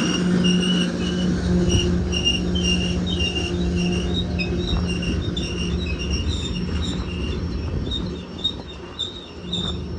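Freight train cars rolling slowly with their brakes squealing: short high-pitched squeals repeating about twice a second, over a steady low hum and the rumble of wheels on rail. The squeals rise in pitch about halfway through, and the rumble eases off near the end.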